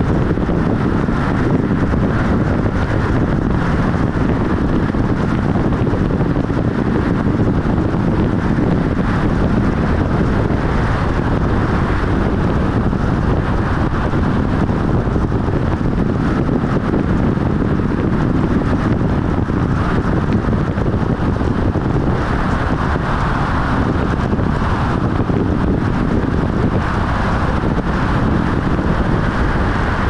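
Steady road and wind noise of a car driving at speed: a constant rush of tyres and air.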